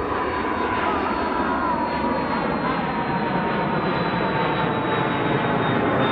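Cessna Citation 560XL business jet climbing out after takeoff: a steady roar from its twin turbofans, with a high whine that slowly falls in pitch as it passes.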